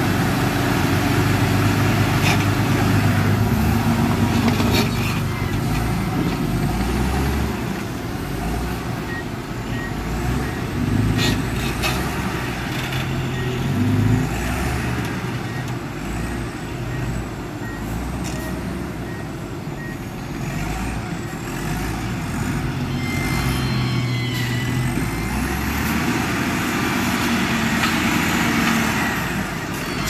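Wheel loader's diesel engine working under load, its pitch rising and falling as it pushes soil and lifts a full bucket, with a few sharp clanks. A faint, evenly repeated beeping runs through the middle stretch.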